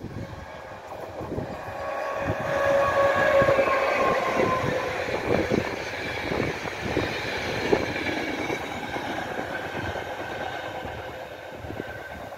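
An electric-hauled passenger train passing at speed: a whine from the locomotive swells as it comes near, the wheels clack over the rail joints as the coaches go by, and the noise fades slowly as the train runs off into the distance.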